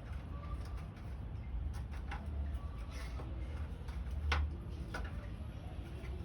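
Irregular light clicks and knocks of hand work on pump fittings, the sharpest about four seconds in, over a steady low hum.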